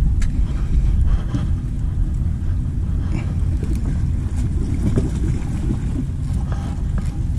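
Steady low rumble of wind buffeting the microphone, with faint scratches and light ticks as a shrimp lure's hook point is rubbed against rock to sharpen it, the point having gone blunt from knocking on the rocks.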